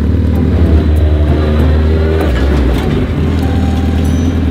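Hayabusa inline-four motorcycle engine in a Japanese mini truck, running steadily at idle, its note shifting about two seconds in.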